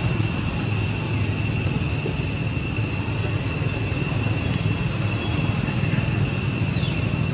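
Outdoor ambience: a steady high-pitched insect drone over a continuous low rumble, with two short falling high calls near the end.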